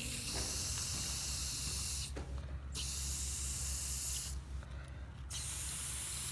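Aerosol spray paint can spraying, in three long hisses with short breaks between them.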